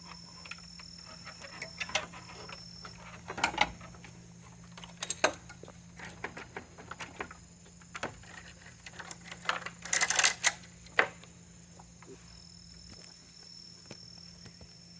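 Goats' hooves clattering and knocking irregularly on a hard floor, with a dense run of clatter about ten seconds in.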